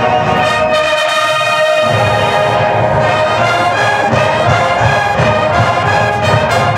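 Massed high school marching bands playing together, brass-led with trumpets and trombones holding loud sustained notes; a steady low beat comes in about two seconds in.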